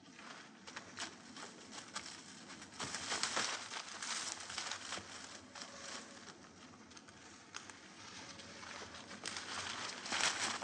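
Running footsteps through dry leaf litter and undergrowth: quick, irregular crunching and rustling, louder about three seconds in and again near the end.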